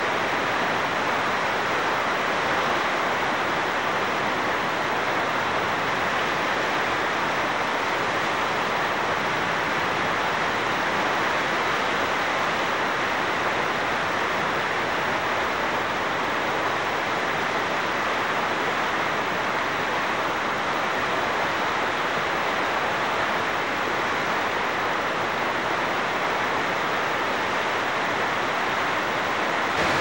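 Steady rushing of river water over rapids, an even roar that does not change.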